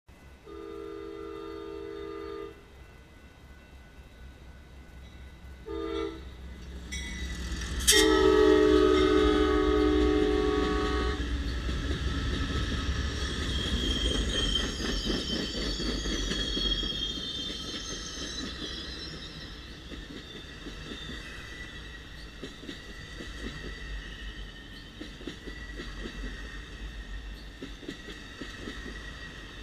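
Amtrak California Zephyr passenger train, led by a four-unit diesel locomotive consist, sounding its horn in three blasts (long, short, long) as it approaches. The train then passes close at speed: a loud rumble of engines and wheels, a high squeal for a few seconds, then the steady clickety-clack of bilevel Superliner cars rolling by.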